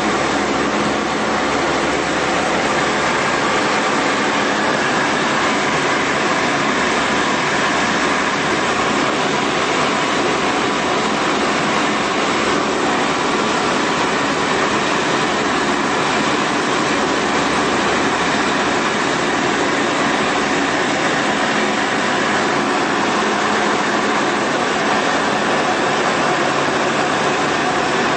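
Tecnam Sierra's Rotax 912 flat-four engine and propeller heard from inside the cockpit, running steadily at takeoff power through the takeoff and climb-out.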